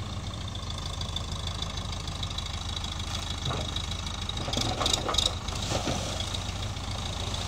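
JCB 3DX backhoe loader's diesel engine running steadily as the machine drives slowly through shallow water. Water surges and splashes against the front bucket about five seconds in.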